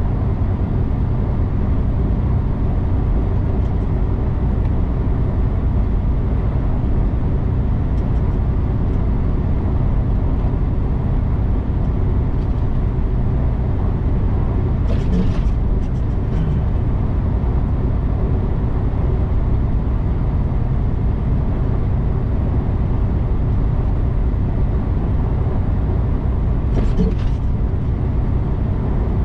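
Semi-truck's diesel engine and tyres droning steadily while cruising, heard from inside the cab. Two brief hisses, about halfway through and again near the end.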